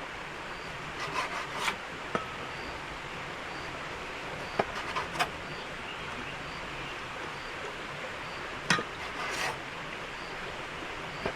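Knife cutting pork tenderloin into strips on a cutting board: a few sharp taps of the blade on the board and short rasping slicing strokes, over a steady background hiss.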